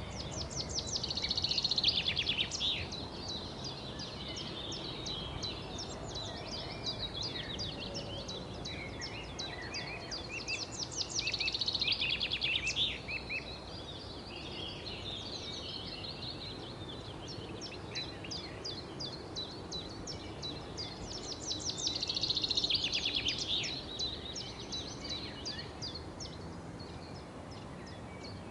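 A chorus of small birds chirping continuously, swelling three times into bursts of fast, trilled chirps, over a steady low background noise.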